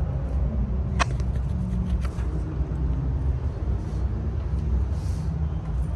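1969 Comfortmaker three-phase central air conditioner running: a steady low hum and rumble, with a sharp click about a second in.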